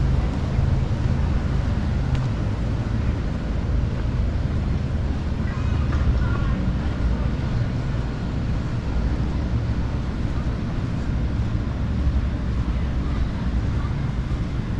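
Wind buffeting the microphone as a steady low rumble, with faint voices in the background about halfway through.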